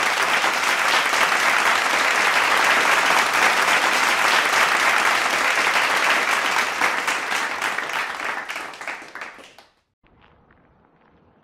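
Crowd applause, dense steady clapping that fades out near the end into near silence.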